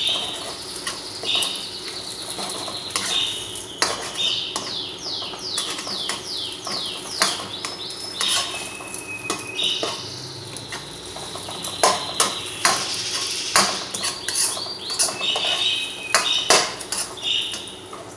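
Metal ladle scraping and clinking against a wok as eggs are stirred and scrambled, with many sharp clinks and runs of quick, high scraping strokes.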